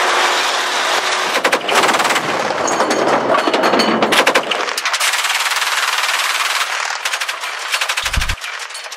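Long, rapid bursts of automatic fire from a truck-mounted twin-barrel anti-aircraft gun, shot after shot with hardly a gap.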